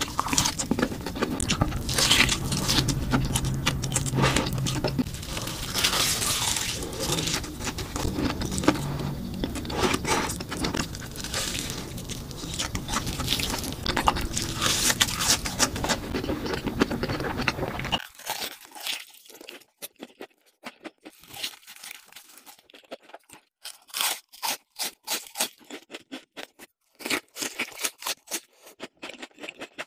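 Close-miked crunching and chewing of red crumb-coated fried food, bites and chews overlapping densely over a low background hum. About two-thirds of the way through the background drops away and the crunches come as separate crisp bites with short silences between them.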